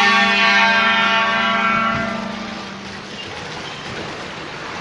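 A bus's 'telolet' musical air horn sounds one long blast of two horn tones together, holding steady and then fading away about two to three seconds in. Traffic noise follows.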